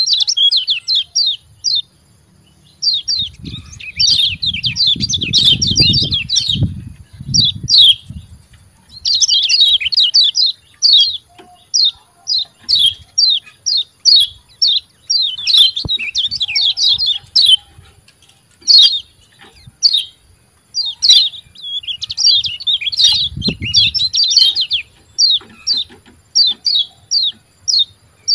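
Kecial kuning (yellow white-eye) calling its 'ciak ciak jos' call: fast runs of short, sharp, high-pitched chirps in repeated bursts with brief gaps between. A low fluttering rustle sits under the calls about three to eight seconds in and again near the end.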